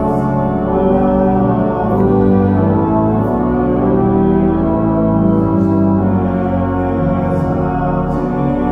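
Organ music: held chords that change every second or two, in a church.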